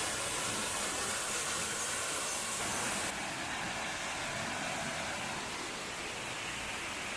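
Waterfall and burn rushing, a steady hiss of falling water; the hiss loses some of its top end about three seconds in.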